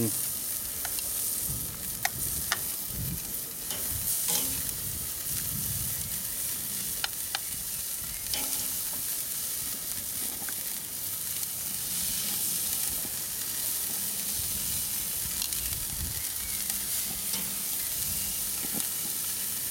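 Parsley-garlic-marinated turkey medallions sizzling steadily on a hot gas grill's grate as more pieces are laid on, with a few sharp clicks in the first half.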